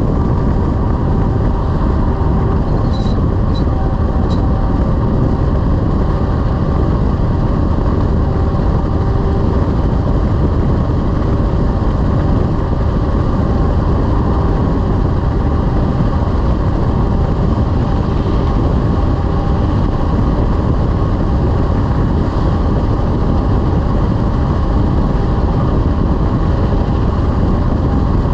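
Heavy-haul semi truck driving: steady diesel engine and road noise with a low rumble. Three short ticks sound about three seconds in.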